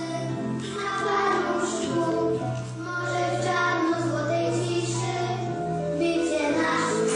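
A children's class choir singing a Christmas song together, with instrumental accompaniment.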